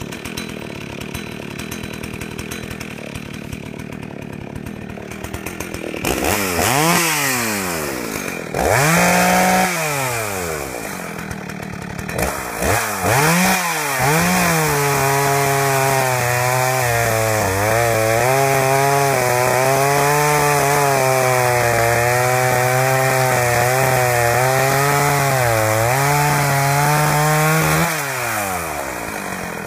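Husqvarna 61 two-stroke chainsaw misfiring. It idles unevenly with scattered pops for about six seconds, is blipped up three times, then held at high revs for about fourteen seconds with the pitch wavering up and down, drops back, and revs once more near the end. The popcorn-like misfire comes from a loose kill-switch wire shorting out against the case.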